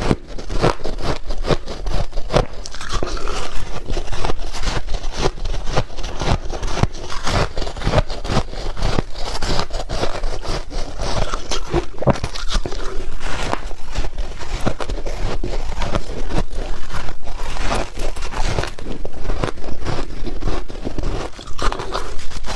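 Close-up crunching of powdery freezer-frost ice being bitten and chewed: dense, irregular crunches and crackles, many per second.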